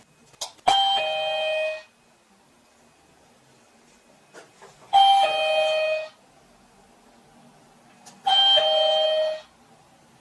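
SINGCALL SC-R50 wireless calling receiver chiming three times, each a falling two-note ding-dong about a second long, each just after a faint click of a pager button. Each chime signals that the receiver has picked up a pager's call and registered it to the next number.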